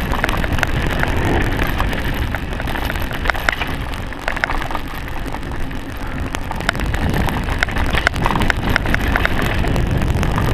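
Mountain bike coasting fast down a choppy dirt trail, heard from a camera on the rider: wind buffeting the microphone and tyres running over rough ground, with the bike rattling and clicking sharply on the bumps.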